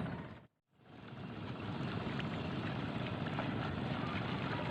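Steady wind rumble on the microphone, broken by a brief drop to silence about half a second in.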